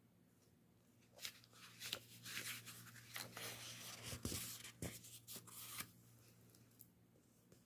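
Rustling and crackling of something being handled, with a few sharp clicks, lasting about four and a half seconds from about a second in.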